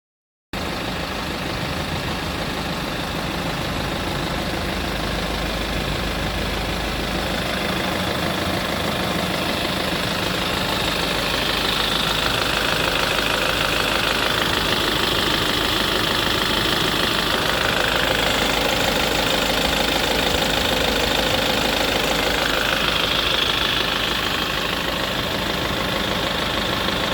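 Diesel engine of a BMW 520d, a 2.0-litre four-cylinder, running steadily, a little louder in the second half.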